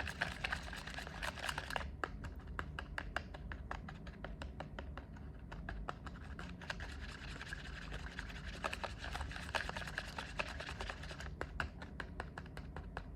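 Small plastic spoon scraping and clicking against the plastic tray of a Popin Cookin DIY candy kit, stirring and breaking up candy mix that has set stiff; a quick, steady run of light clicks and scrapes.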